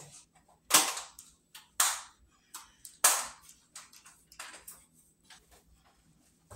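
A metal spoon knocking against a pizza pan while spreading sauce on dough: three sharp clacks about a second apart, then fainter taps and scrapes.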